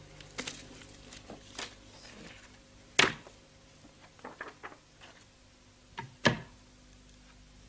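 A few sharp, separate knocks and clicks: a loud one about three seconds in, two more close together near six seconds, and smaller ticks between, over a faint steady hiss.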